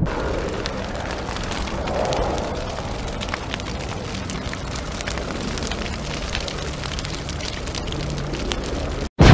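Fire crackling: a steady low rush dotted with many sharp crackles and pops, swelling slightly about two seconds in and cutting out for a moment near the end.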